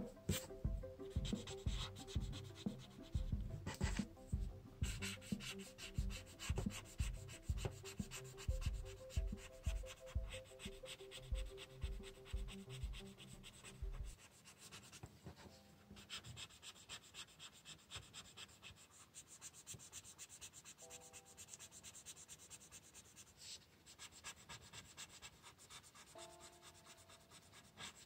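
Rapid shading strokes of a drawing tool rubbing back and forth on paper, several strokes a second. They are heavier until about halfway through, then go on lighter.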